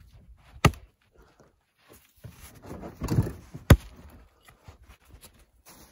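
Splitting maul striking firewood rounds on a chopping block, two sharp strikes about three seconds apart, the second the louder. A quieter scuffing noise comes just before the second strike.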